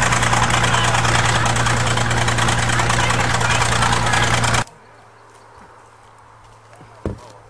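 A 1953 International TD-20 bulldozer's diesel engine running steadily with a deep hum. The sound cuts off abruptly about four and a half seconds in, leaving a much quieter background with a single short thump near the end.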